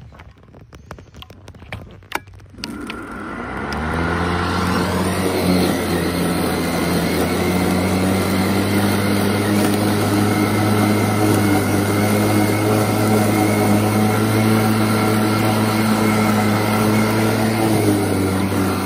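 A few sharp clicks, then the 56-volt EGO Power+ 21-inch cordless electric lawn mower's motor starts about three seconds in, spinning up over about a second to a steady hum. It runs on at an even speed to the end.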